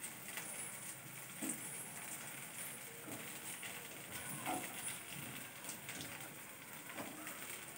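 Sweet-potato cutlets sizzling quietly as they shallow-fry in a little hot oil in a pan, with a few faint taps and scrapes as they are turned and moved.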